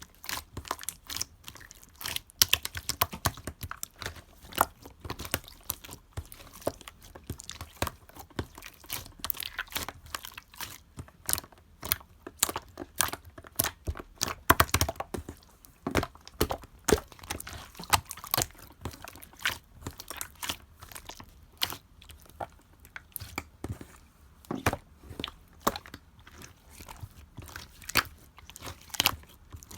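Clear slime worked by hand, giving a dense, irregular run of sticky clicks and pops, several a second.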